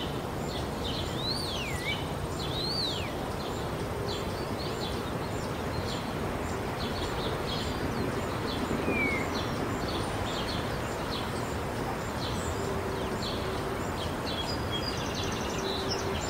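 Outdoor ambience: a steady wash of background noise with small birds chirping repeatedly, including two swooping whistled calls that fall and then rise about a second and two and a half seconds in.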